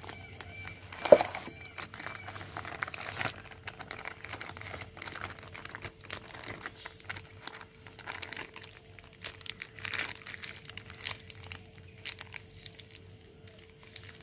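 Plastic milk packet crinkling and rustling as thick, set milk is squeezed out of it into a steel mixer jar, with a sharp knock about a second in. A faint steady hum underneath.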